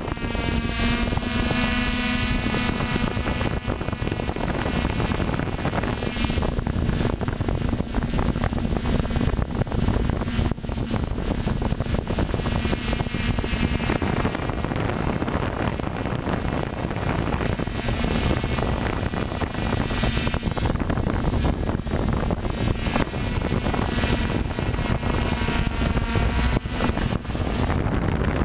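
FPV drone's electric motors and propellers whirring, heard from the onboard camera, with wind rushing over the microphone. The whine wavers in pitch as the drone manoeuvres.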